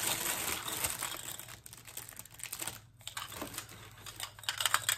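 Packaging crinkling and rustling as it is handled, dense for the first second and a half, then lighter scattered crackles with a cluster of sharper crinkles near the end.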